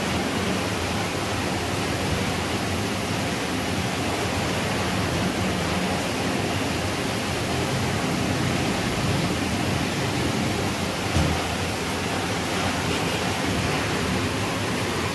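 Steady, even rushing noise with no clear tone, and one faint knock about eleven seconds in.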